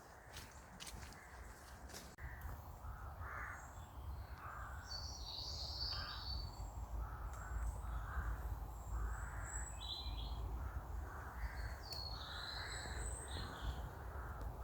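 Crows cawing over and over, about one caw a second, with small birds' chirps higher up.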